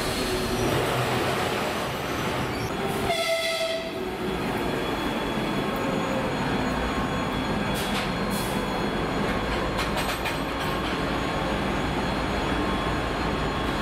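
TEP70BS diesel passenger locomotive running light along the station track, its V16 diesel engine running steadily. A short horn note sounds about three seconds in.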